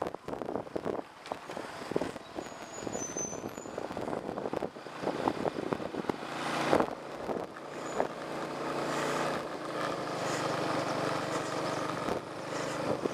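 A small motorbike running along a rough concrete lane, with knocks and rattles from the bumps. One sharp knock comes about seven seconds in, and a steady engine hum comes through clearly from about eight seconds on.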